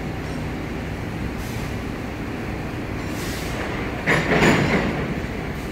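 Freight train of Pertamina Jet A-1 fuel tank wagons rolling past on steel wheels, a steady rumble, with a louder clattering burst about four seconds in.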